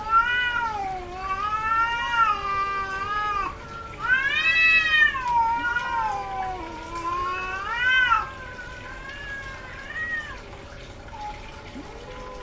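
Female cat in heat caterwauling: long, drawn-out yowling meows that bend up and down in pitch, two long calls in the first seven seconds, then shorter and fainter ones toward the end. The persistent yowling is the mating call of a cat in heat.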